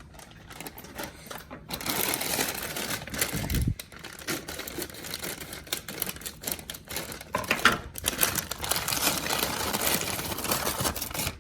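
Frozen butternut squash cubes poured into a bowl: a busy, rapid clatter of hard frozen pieces tumbling and knocking together, with a dull thump about three and a half seconds in.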